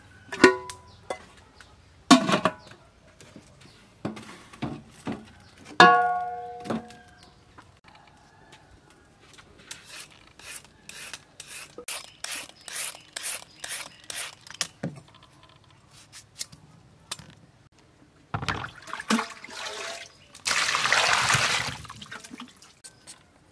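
Carrot scraped with a serrated peeler: a run of quick rasping strokes, about two or three a second, after three ringing knocks of kitchenware. Near the end, water splashes in a bowl for a second or two.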